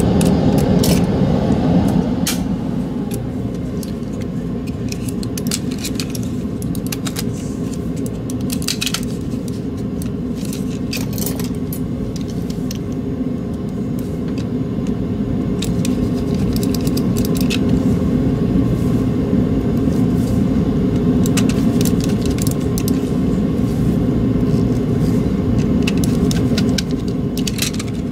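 Light clicks and taps of plastic mouse shell parts being handled and fitted together, scattered irregularly over a steady low rumbling hum.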